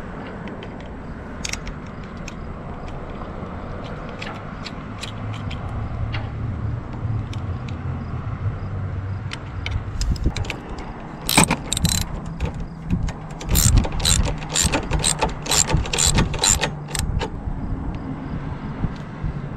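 Hand tools clicking and clinking on stainless-steel anchor-bracket hardware being fitted to a boat's rail. Scattered light clicks come first, then a quick run of sharp metallic clicks for several seconds past the middle, over a low steady rumble.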